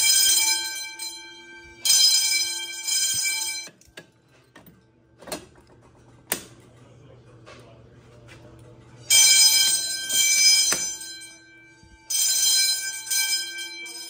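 Fire alarm bells ringing in bursts of two to three seconds with short breaks between them. The bells stop for about five seconds in the middle, when a couple of sharp knocks and a low hum are heard, then ring again.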